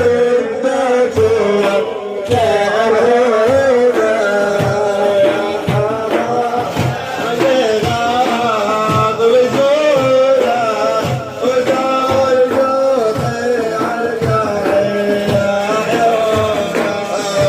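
Middle Eastern devotional music: an ornamented melody with wavering pitch over a steady hand-drum beat.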